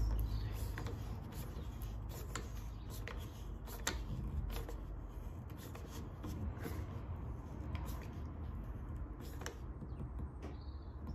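Light clicks and rubbing of small metal parts as a threaded hose fitting is screwed and tightened onto a pressure-washer stubby trigger gun, with irregular handling noises.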